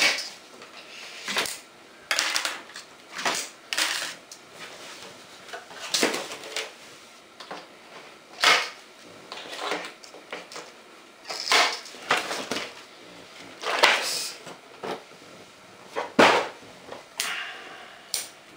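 Small scissors snipping and packaging being handled while an RC rock buggy is cut loose and taken out of its box: a dozen or so irregular clicks, snips and short rustles.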